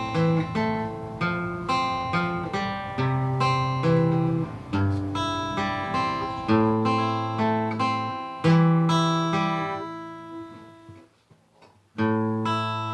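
Acoustic guitar music of picked and strummed chords, each note ringing and then decaying. It dies away about ten seconds in, and then one more chord is struck near the end and left to ring.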